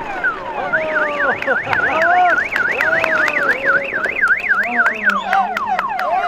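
Electronic siren sounding: a run of quick falling tones, then a fast up-and-down warble about four times a second for some four seconds, then falling tones again.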